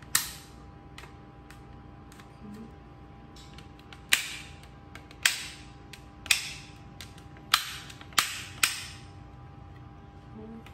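Sharp plastic snaps and clicks from handling a 400% Bearbrick vinyl figure, seven of them at uneven intervals, each with a brief hissy tail.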